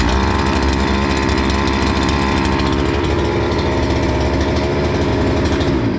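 Bolat Atak 570 brushcutter's two-stroke engine running at a steady speed, then dying near the end when the repaired stop switch on the handle is pressed. The switch now shuts the engine off as it should.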